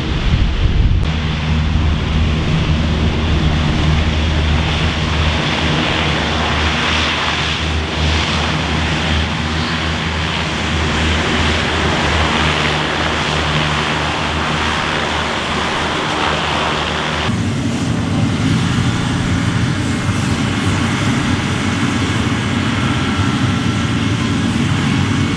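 Landing Craft Air Cushion (LCAC) hovercraft running, its gas turbines and ducted propellers making a loud steady drone. About two-thirds in the sound changes abruptly to a steadier, deeper hum of the engines idling. A faint high whine comes in near the end.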